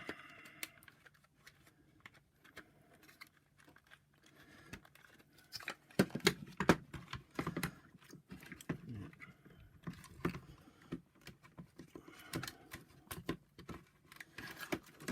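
Irregular clicks, knocks and light rattles of plastic as the power nozzle motor is worked out of the vacuum cleaner's floor-head housing, with a few sharper knocks about six and seven seconds in.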